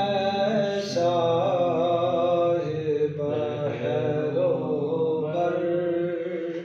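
A man singing a naat, drawing out a long wavering melismatic line without clear words, with a brief breath about a second in.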